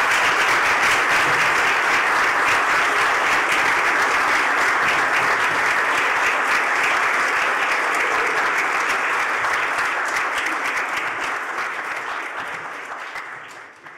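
Audience applauding, steady at first and dying away over the last few seconds.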